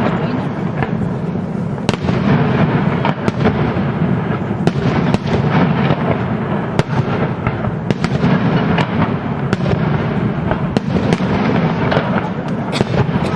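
Fireworks display going off in a continuous dense barrage: rapid sharp cracks and bangs over a steady low rumble, with no break.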